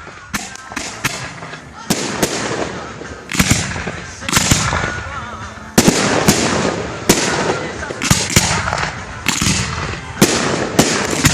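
Aerial fireworks shells bursting in quick, irregular succession: sharp reports with a crackling hiss trailing each. The bursts come thicker and louder as it goes, with a sudden step up in loudness about six seconds in.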